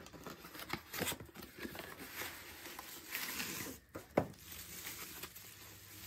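Cardboard box and bubble-wrap packaging rustling and scraping as a wrapped clock is slid out of the box, with a few light knocks, the sharpest about four seconds in.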